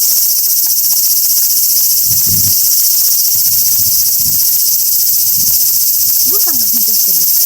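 Loud, steady chorus of cicadas singing, a dense high-pitched drone that never lets up.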